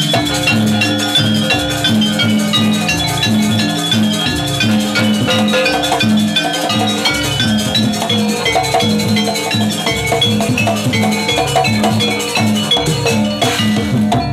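Jaranan gamelan accompaniment: drums and gong-chime percussion playing a steady repeating beat under quick ringing metallic notes.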